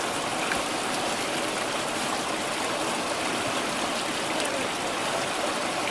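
A river's flowing water rushing steadily.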